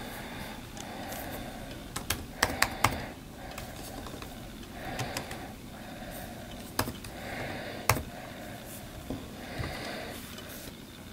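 Typing on the butterfly-switch keyboard of a 2016 MacBook Pro: keys clicking in a quick run about two seconds in, then scattered single clicks.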